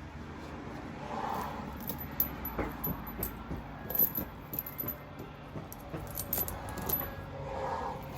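Metal tire chain links clinking and jingling as the studded tire chains are handled and fitted onto a tire, with irregular clicks throughout.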